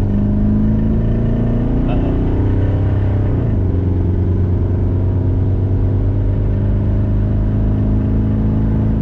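1992 Chevy C1500 pickup with a 350 small-block V8 driving, heard from inside the cab: a steady engine and road hum whose pitch rises as the truck speeds up, drops abruptly about three and a half seconds in, then climbs slowly again.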